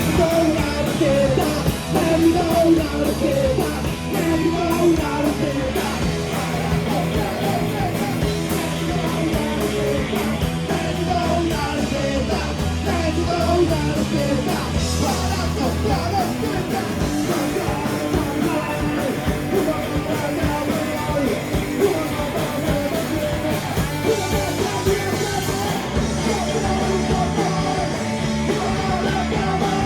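Live rock band playing with a singer: electric guitars, bass and drums, in a fast punk-rock style.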